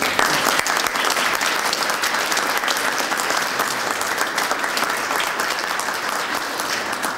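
A group of people applauding, steady clapping.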